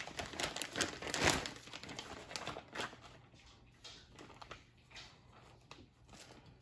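Thin plastic bag crinkling as it is pulled open and off a pistol, loudest in the first couple of seconds. After that come faint, scattered ticks and knocks of the pistol being handled.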